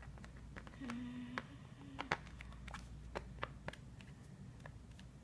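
Faint, scattered clicks and taps of small plastic Barbie toy-table pieces being handled and snapped together during assembly.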